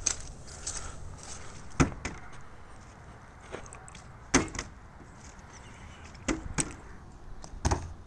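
A handful of sharp knocks, spaced irregularly a second or more apart, over a low rumble.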